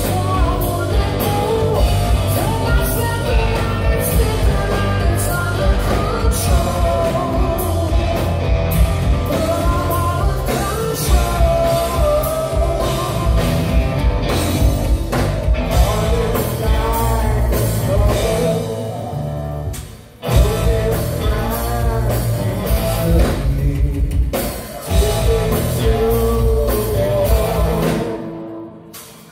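Rock power trio playing live: electric guitar, bass guitar and drum kit with a male lead vocal. The band stops short for a moment about twenty seconds in, and again just before the end.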